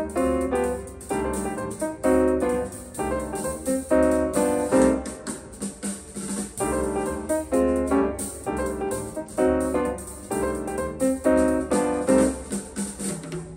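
Piano music: chords struck in a steady, repeating rhythm.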